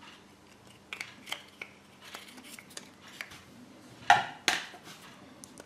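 Foil wrapper of a Kinder Surprise chocolate egg crinkling with small clicks as it is peeled off, then two sharp snaps about four seconds in as the egg is broken open.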